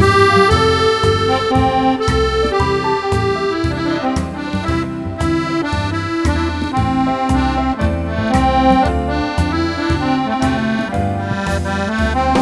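Accordion playing a sustained melody over a steady bass-and-chord beat.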